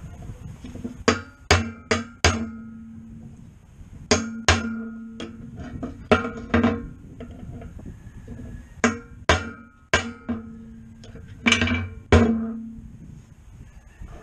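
A hammer strikes a steel drift punch, driving a new bearing into a cast pillow-block housing on a disk harrow gang. There are about seventeen sharp metal taps in quick clusters of two to four, each with a short ring. The bearing is being tapped evenly around its race to seat it straight.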